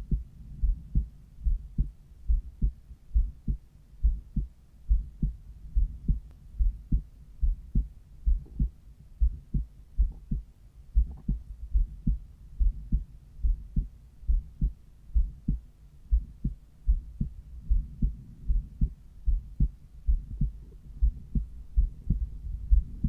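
Human heartbeat heard through a cardiology stethoscope over the pulmonary valve: regular, steady lub-dub beats, low and muffled.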